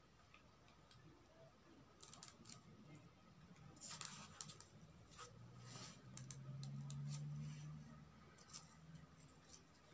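Quiet crafting noise: scattered light clicks and rustles as a hot glue gun and small fabric flowers are handled over a wicker basket during gluing. A faint low hum sounds for a couple of seconds past the middle.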